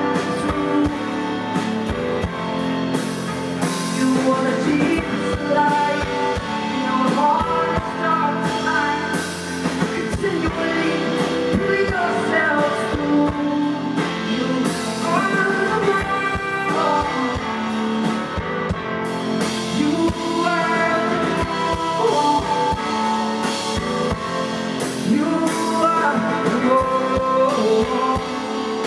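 Live rock band playing: a woman singing over drums, keyboards and guitar.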